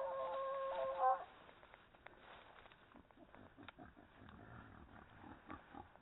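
Wild boar squealing once, a high steady call of about a second with a rising start, followed by faint grunting amid small clicks and rustles in the brush.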